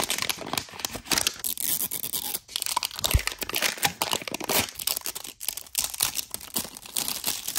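Wrapping being torn and peeled off a plastic toy capsule ball, a dense, irregular run of crinkling and tearing crackles, with a dull knock about three seconds in.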